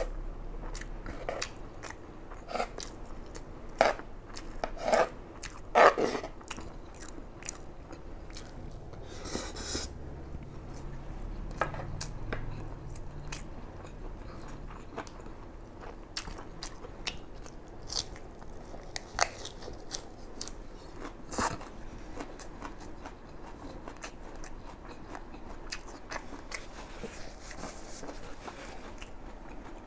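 Close-miked chewing of a mouthful of fried rice, with wet mouth sounds and scattered short crunches and clicks; the loudest crunches come in a cluster about four to six seconds in.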